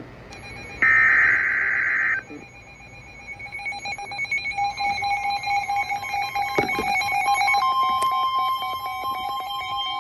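Emergency Alert System signal between two warnings. A screeching digital data burst lasts about a second and a half near the start. After a crackly pause, the steady alert tone comes in about four and a half seconds in, and a second, slightly higher tone joins it near the middle.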